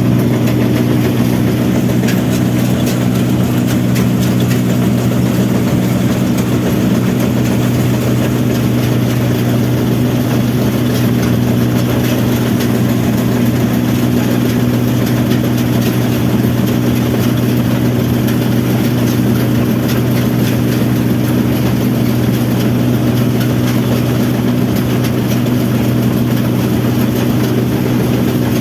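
Rice combine harvester's diesel engine running steadily at constant speed, with the hum of the harvesting machinery.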